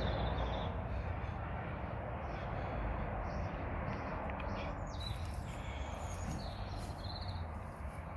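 Steady outdoor background noise, a hiss with a low rumble, with a few short bird chirps now and then.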